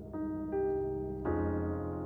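Calm instrumental background music: three held notes come in one after another, each ringing on over the last.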